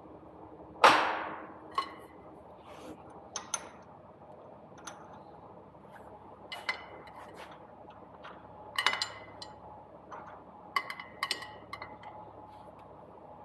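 Sharp metallic clicks and clinks as a Continental IO-550 crankshaft is turned slowly by hand with a long wrench on the propeller flange. One loud clank with a brief ring comes about a second in, followed by a scatter of smaller clicks.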